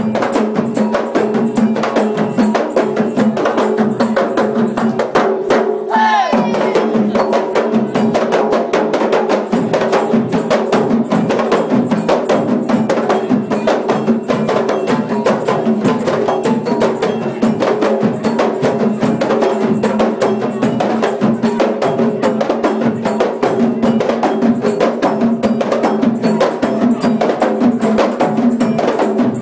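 Kompang frame drums beaten by hand in a fast, dense interlocking rhythm, together with a double-headed gendang drum, keeping a steady beat for silat.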